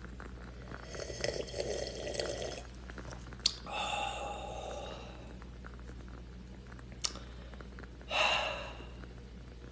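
A person sipping hot mulled wine from a glass mug: a slurping sip, two sharp clicks, and two short breathy exhales after swallowing.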